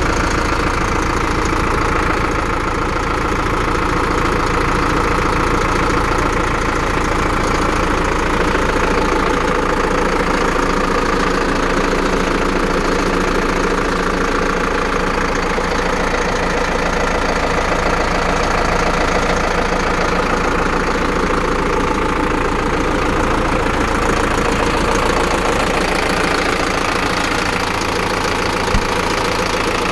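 Zetor Forterra HD 150 tractor's diesel engine idling steadily, with a single sharp click near the end as the cab door handle is grasped.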